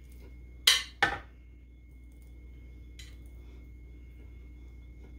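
A hand scooping cooked ground beef out of a ceramic bowl and dropping it into a pan: two short scrapes close together just before a second in and a fainter one later, over a low steady hum.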